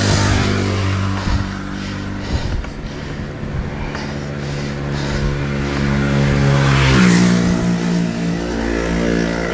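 A motor vehicle's engine running steadily on the road alongside, its pitch stepping up about seven seconds in.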